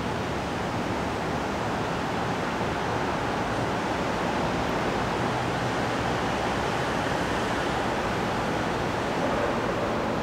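Steady rushing background noise, even throughout, with no distinct clicks or knocks.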